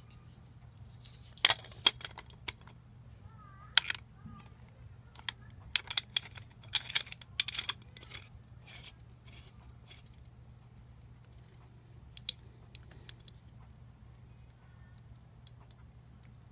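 Sharp clicks and knocks of hard small parts being handled, plausibly the replica lightsaber hilt and its pieces during disassembly. They come in a cluster from about a second and a half to eight seconds in, with one more near twelve seconds, over a low steady hum.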